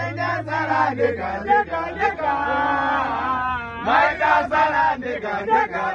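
A group of men chanting and singing together, with long held notes near the middle. A steady low hum sits under the first second.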